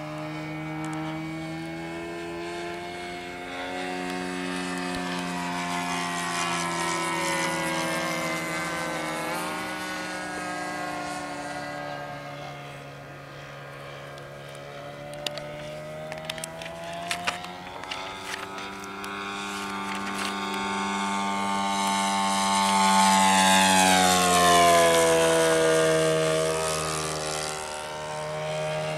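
Radio-controlled model airplane's propeller engine droning in flight. Its pitch rises and falls as it manoeuvres, and it swells loudest about three-quarters of the way through as it passes, its pitch dropping as it goes by.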